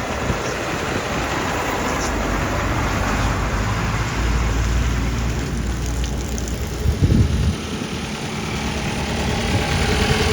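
A motor vehicle's engine running under a dense rushing noise, with a deeper rumble from about four seconds in and a short thump about seven seconds in.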